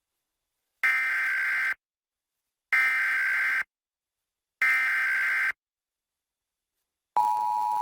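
Emergency Alert System SAME header: three short bursts of digital data tones, each about a second long and a second apart, with dead silence between them. Near the end the steady two-tone EAS attention signal starts, announcing a required monthly test.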